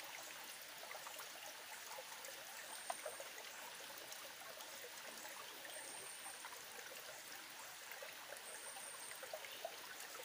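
A small creek trickling steadily, with a faint, short high-pitched tone that repeats about every three seconds.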